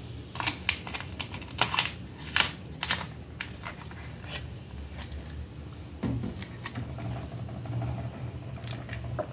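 Plastic two-litre soda bottle being handled and its cap screwed back on: a quick run of sharp plastic clicks and crackles. Quieter after, with a drink from a glass of iced cola near the end.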